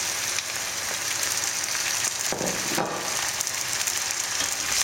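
Pieces of pollock fillet sizzling steadily in hot sunflower oil with fried onions in a frying pan on high heat.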